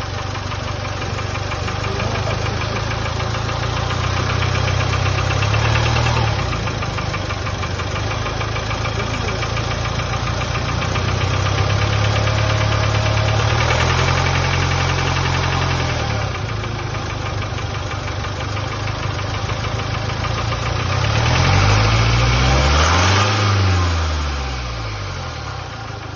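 Jaguar F-Pace's 2.0-litre four-cylinder turbodiesel running with a steady clatter, revved up and let fall back three times, the last time highest. It makes knocks whose cause the owner cannot identify.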